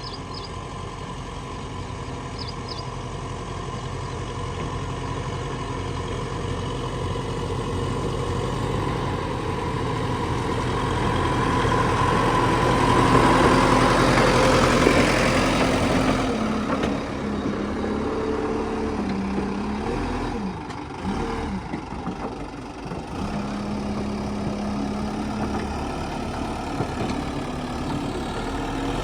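Heavy diesel engine running. It grows louder to a peak about halfway through, then settles, with its pitch wavering up and down as the engine speed changes.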